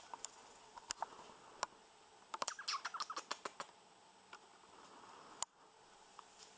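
Faint scratchy clicks and rustles of a rough collie puppy moving about on a fabric sofa, with a quick flurry of small scrapes about halfway through and a single sharp click near the end.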